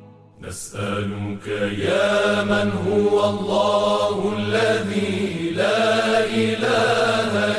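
Arabic religious chant (nasheed), a melismatic voice line over a steady low drone. It starts after a brief near-silent pause with a sudden entry about half a second in.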